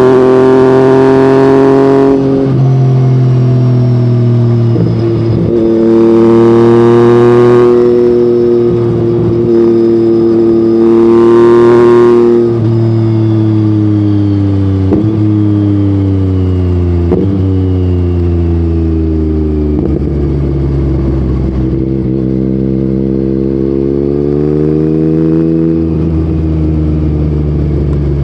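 Yamaha MT-09 crossplane three-cylinder engine through an Akrapovic exhaust, ridden hard: three loud bursts of open throttle in the first dozen seconds, then engine speed falling with two quick gear changes, then cruising at a steady pitch with a small rise near the end.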